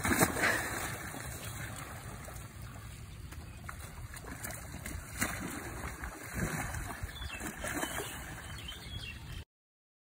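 Wet mud sloshing and splashing as baby elephants roll and thrash in a mud wallow, over steady outdoor background noise. It is loudest just after the start, and the sound cuts off suddenly about nine seconds in.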